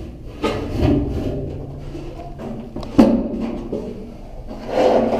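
Knocks and rubbing as a person moves around inside a cramped airplane fuel tank, with the sharpest knock about three seconds in, over a low steady hum.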